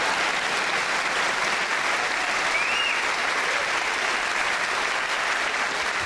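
Theatre audience applauding steadily after a punchline, with one short high note rising and falling about two and a half seconds in.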